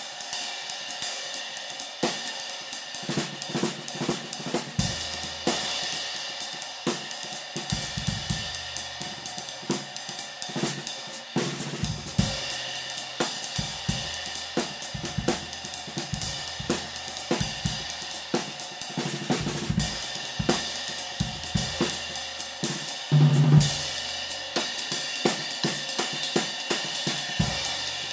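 Round Sound Custom Thin High 20-inch ride cymbal (1740 g) played with a stick in a steady drum-kit groove, its shimmer sustained under snare, bass drum and hi-hat. One louder drum hit about 23 seconds in.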